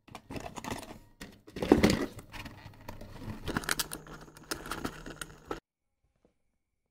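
Hands handling cardboard boxes and electronic accessories being gathered for packing: irregular clicks, knocks and rustles of cardboard and plastic, loudest about two seconds in, then cutting out suddenly a little past five seconds in.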